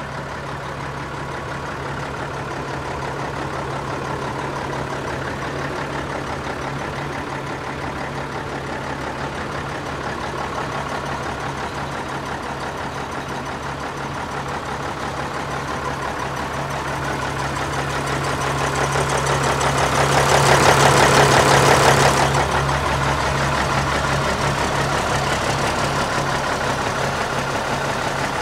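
Mack diesel engine of a 1982 Mack cab-over truck idling steadily, swelling louder for a couple of seconds about twenty seconds in.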